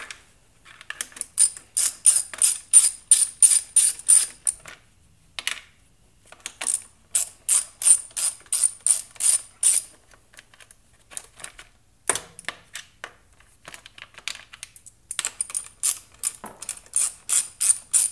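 Quarter-inch ratchet with an extension and 7 mm socket clicking in quick runs of a few seconds as it backs screws out of a generator's alternator end cover, with short pauses between runs. A single knock comes about twelve seconds in.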